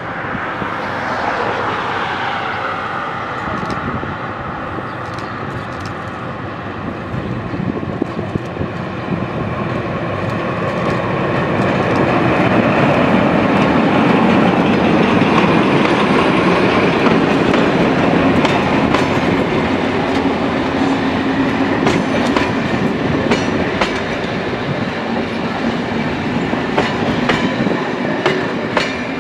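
MÁV M41 diesel locomotive hauling passenger coaches past a level crossing. Its engine grows louder as it approaches and is loudest about halfway through as it draws level. The coaches' wheels then click over the rail joints.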